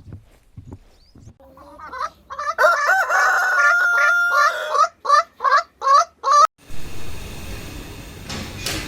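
Domestic fowl calling: a long drawn-out call, then a run of about five short, evenly spaced honking calls, cut off abruptly by a steady hiss.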